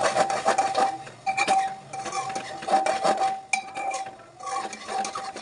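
Metal kitchenware clinking and scraping in quick, uneven knocks, like steel utensils against steel dishes, over a steady high ringing note that breaks off a few times.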